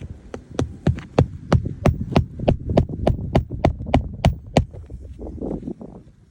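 A hammer driving roofing nails through an asphalt shingle: about sixteen quick, even blows, roughly three a second, that stop about two-thirds of the way in.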